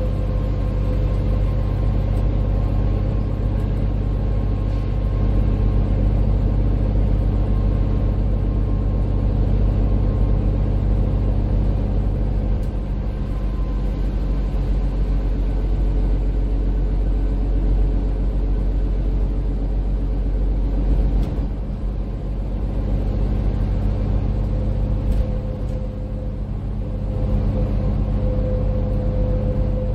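Inside a MAN Lion's City 12C EfficientHybrid city bus under way: steady low engine and road rumble with a faint steady whine over it. The rumble eases briefly twice in the second half.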